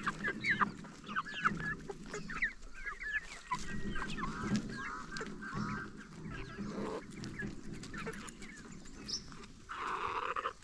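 A flock of chickens clucking and calling as they feed on banana stalk, with many short calls overlapping throughout and a longer call near the end.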